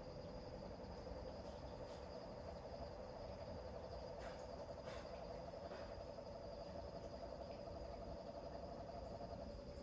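Bullfrogs and crickets calling together at night: a rapid pulsing trill in the middle register and a steady high cricket tone, with a few short calls in the middle. The trill eases near the end.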